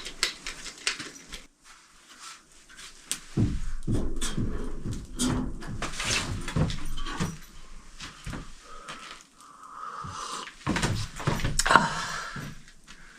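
Irregular knocks, clicks and clatter of objects being handled, with two louder stretches of low thuds.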